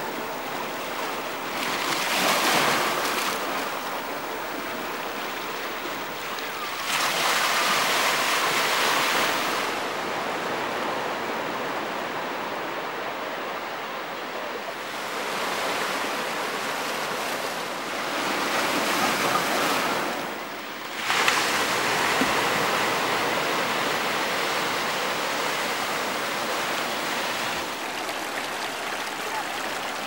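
Sea surf washing and breaking, a steady rush of water that swells louder several times for a few seconds at a time.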